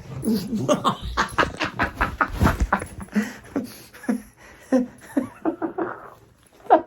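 A dog making a quick string of short vocal sounds, several a second, with a loud one near the end.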